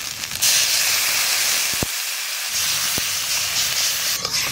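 Water poured into a hot kadai of dry tuna pieces frying in spice paste, hitting the hot oil with a loud, steady hissing sizzle that starts suddenly about half a second in.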